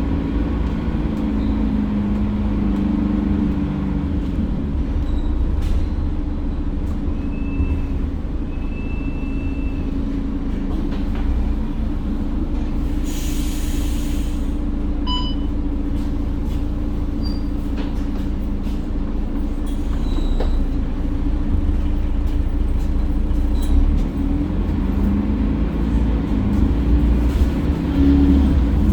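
Mercedes-Benz OC500LE single-deck bus heard from on board: the diesel engine and road rumble run steadily, their pitch rising and falling as the bus speeds up and slows. About halfway through there is a short, loud burst of air hiss.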